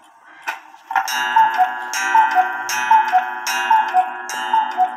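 Cuckoo clock calling, played through laptop speakers: starting about a second in, five two-note cuckoo calls, high then low, about one every 0.8 s, each with a short puff at the start, over a steady chord of held notes.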